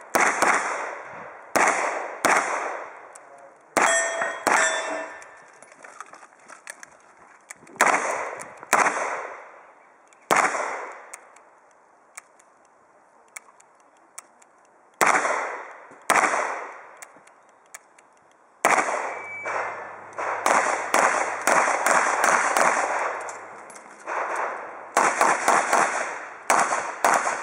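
Revolver shots fired in strings, each a sharp crack with a trailing echo, spaced about a second apart at first, then a pause, then a fast run of shots near the end. A couple of shots near the start are followed by brief ringing, like steel targets being hit.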